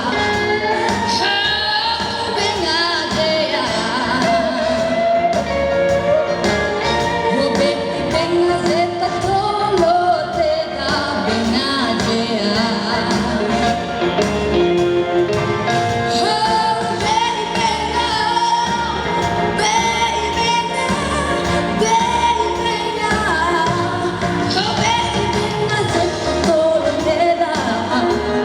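A young woman singing a solo over instrumental accompaniment with a steady beat.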